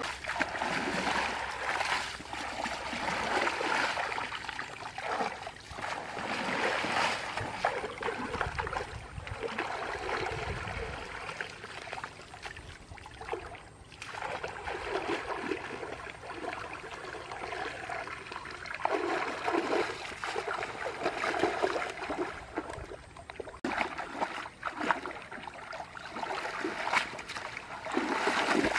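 Shallow muddy water splashing and sloshing in uneven surges as hands and a woven bamboo basket are worked through it.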